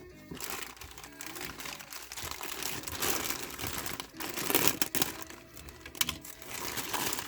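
Thin plastic packaging bag crinkling and crackling unevenly as statue pieces are handled and worked out of it, loudest around the middle.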